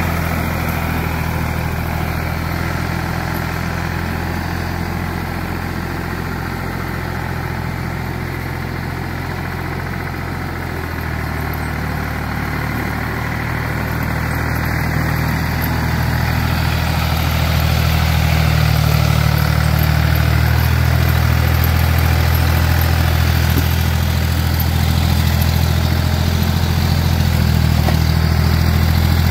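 Ford farm tractor's engine running steadily as the tractor drives with a full loader bucket of snow. The engine note shifts about eleven seconds in and grows louder over the second half.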